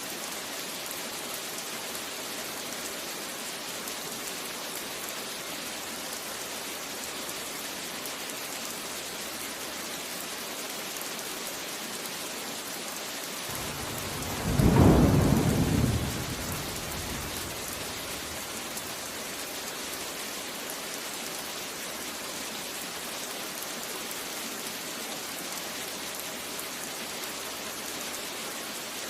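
Steady rain falling, with a single rumble of thunder about halfway through that swells, peaks for a second or two and fades out.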